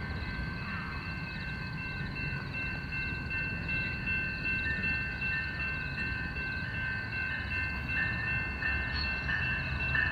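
Railroad crossing bells ringing without a break over the low rumble of an approaching train. A second ringing tone joins about halfway through, and the sound grows a little louder toward the end.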